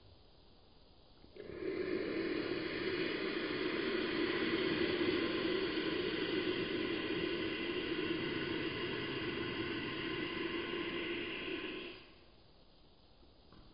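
One long, steady slurp of coffee drawn in through the lips from a small cup. It starts about a second and a half in and stops abruptly near the end.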